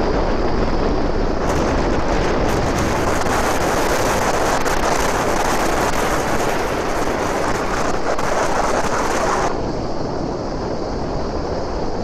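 Wind rushing over the microphone aboard a moving boat, over the steady noise of the boat's engine and water. The wind noise eases about nine and a half seconds in.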